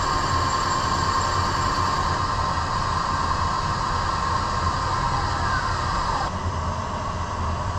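Valve seat cutting machine's spindle running steadily with a high whine as it cuts an intake valve seat in a cylinder head. About five seconds in the pitch falls, and the whine cuts off about six seconds in as the spindle stops.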